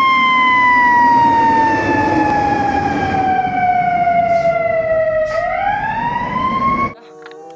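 Fire engine siren wailing as the pumper pulls out: one long slow fall in pitch, then a quicker rise back up, over the truck's engine and street noise. It cuts off suddenly near the end.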